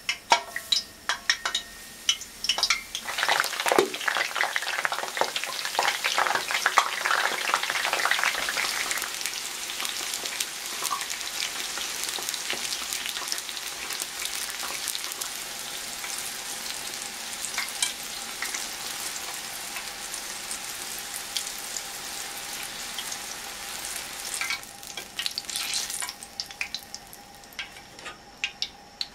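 Eggplant wedges deep-frying in oil at 170 °C in a frying pan. A loud, dense sizzle and crackle builds over the first few seconds as the pieces go in, settles to a steady sizzle, then thins to scattered crackles near the end.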